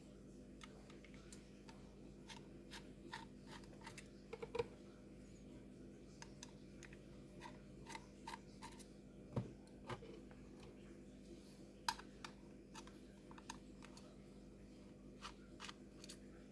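Faint, scattered light clicks and taps of small laptop parts and screws being handled as the hard disk drive is taken out of the laptop, with a couple of sharper knocks.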